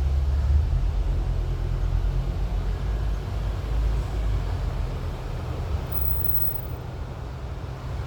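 Alfa Romeo Giulia driving slowly, its low road and running rumble heard from inside the cabin, steady and without a clear knock.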